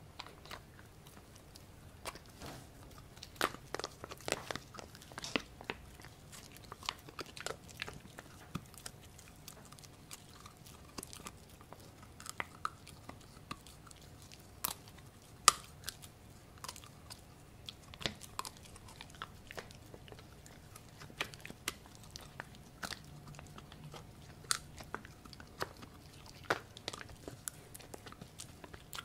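Pomsky puppy (Husky–Pomeranian cross) chewing a pork treat: irregular sharp crunches and clicks of teeth on the treat, the loudest crack about halfway through.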